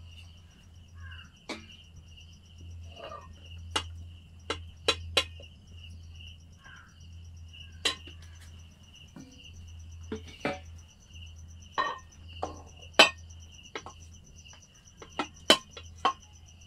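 Stainless steel plates and a serving spoon clinking and knocking as rice and curry are dished out, in irregular sharp clinks, the loudest a little past the middle. A cricket trills steadily in the background.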